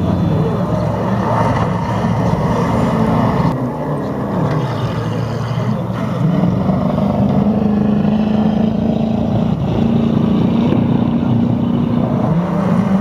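Off-road autocross buggy engines running hard on a dirt track. The pitch dips about four seconds in, then climbs and holds before falling again near the end.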